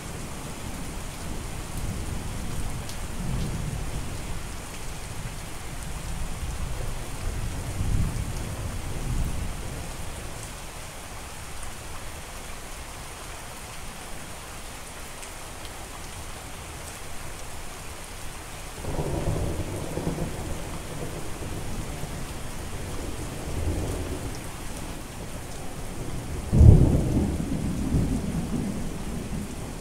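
Steady rain falling, with thunder rumbling low through the first third. A louder thunder rumble comes about two-thirds of the way in, and a sudden sharp thunderclap, the loudest sound, breaks near the end and rolls away.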